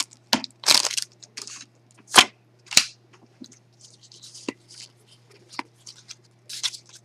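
Foil wrapper of a Pokémon card booster pack crinkling and being torn open, in irregular sharp snaps with softer rustling between.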